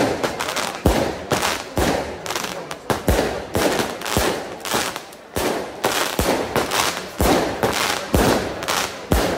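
Daytime fireworks going off in a rapid series of sharp, echoing bangs, about two a second, as aerial shells burst overhead.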